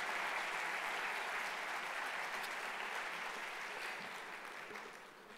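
Audience applauding a speaker at the end of his talk, a steady clatter of many hands that tapers off over the last second or so.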